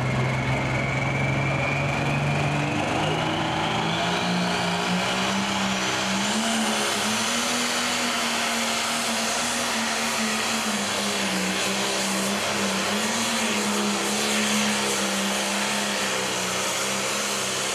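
Pro stock pulling tractor's turbocharged diesel engine at full power pulling a weight-transfer sled. The engine note climbs over the first few seconds and then holds, wavering slightly, while a turbocharger whine rises steadily for about seven seconds and then stays high.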